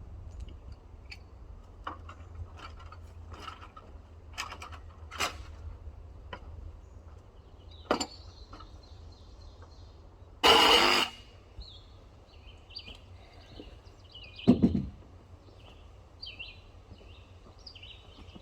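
Scattered clicks and knocks of tools on the excavator's metal hose fittings, with one loud harsh noise about ten seconds in and a heavy thump a few seconds later. Birds chirp faintly in the background.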